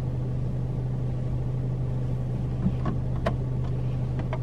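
Car engine idling, a steady low hum heard from inside the cabin. A few light clicks come near the end as the overhead light switch is pressed.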